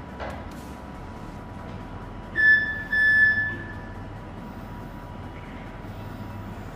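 Two loud, high-pitched electronic beeps about two and a half seconds in, the second one longer, over the steady hum of a Flexi electric articulated forklift at work.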